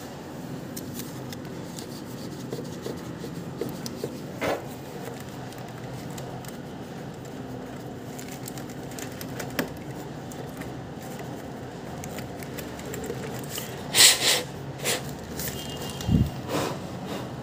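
Handling noise from a VGA cable being worked at a monitor's video input: a few small clicks and scrapes, then a louder clatter about fourteen seconds in and a dull thump a couple of seconds later.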